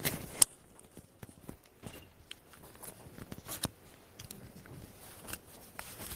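Scattered clicks and knocks of equipment being handled at a lectern, with one sharp knock about half a second in.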